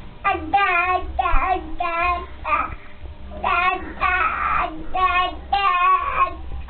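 Seven-month-old baby babbling "da-da" over and over: a run of short, high-pitched syllables, about two a second, with one longer drawn-out sound around four seconds in.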